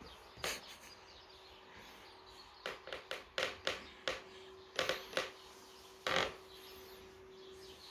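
Bedsheet rustling in a string of short bursts as a hand moves the sheet and strokes the cat, over a faint steady hum.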